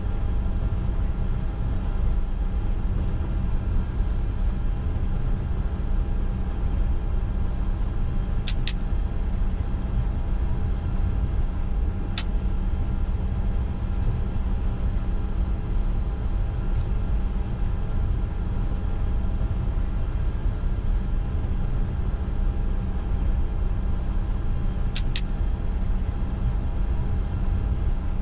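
Steady cockpit noise of a Bombardier Challenger 605 with its two General Electric CF34 turbofans running at idle on the ground: a low rumble under a steady whine. There are a few brief clicks.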